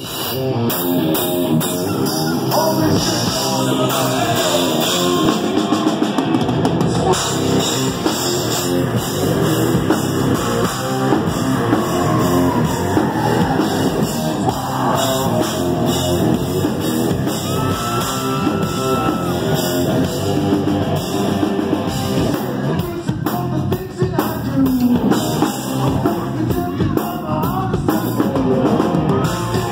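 Rock band playing live and loud: electric guitar and a pounding drum kit, with a man singing into the microphone.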